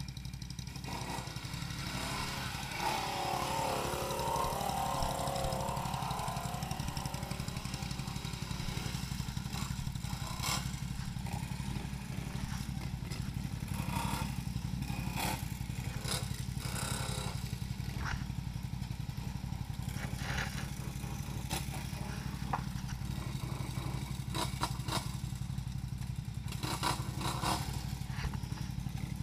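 ATV engine running steadily, with scattered clicks and knocks over it.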